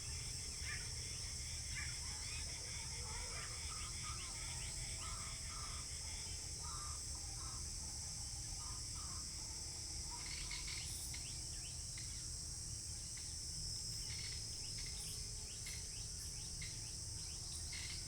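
Rural pond ambience: a steady high-pitched drone of crickets and other insects, with birds calling on and off, short calls in the first half and sharper chirps in the second, over a low steady rumble.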